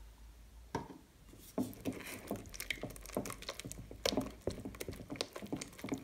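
A silicone spatula stirring glue slime with activator in a glass bowl: quick, irregular wet squishing and clicking against the glass, starting about a second in. The glue is turning stringy and slimy as it mixes.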